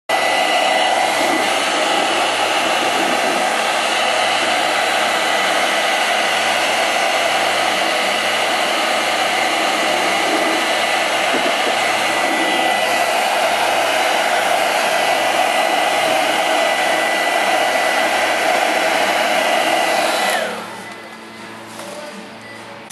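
Small electric blower motor running steadily with a loud rush of air and a fixed whine. About twenty seconds in it is switched off, and its pitch falls as it spins down.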